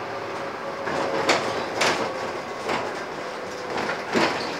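Inside a Scania N230UD double-decker bus on the move: a steady running drone with a faint held tone, broken by a series of sharp knocks and rattles from the body and fittings as it rides over the road surface. The loudest knocks come about a second in and near the end.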